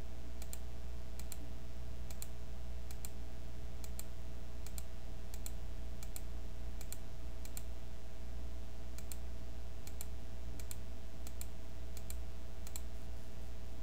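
Computer mouse button clicking over and over, about one to two clicks a second and often in quick pairs, as run tabs are closed one by one. A steady low electrical hum runs underneath.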